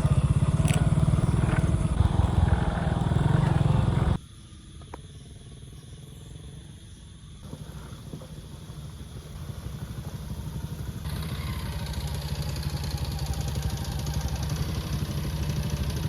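Motorcycle engine running under way, loud for about the first four seconds, then dropping suddenly to a quieter engine sound that grows louder again in the last few seconds.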